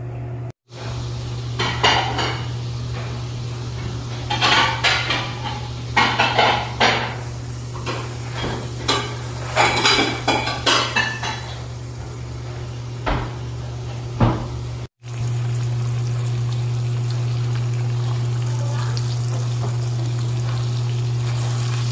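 Clinks and knocks of a plate and utensils as whole fish are dredged in flour. About fifteen seconds in this gives way to a steady sizzle of flour-coated whole fish deep-frying in hot oil in a wok.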